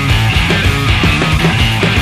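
Loud noise rock from a guitar, bass and drums trio: distorted electric guitar and bass over a steady, hard-hitting drum beat.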